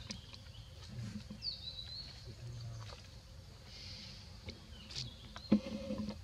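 Macaques handling a paper milk carton and food, with scattered light clicks and rustles. A high chirp glides down about a second and a half in, and a sharp knock about five and a half seconds in is the loudest moment.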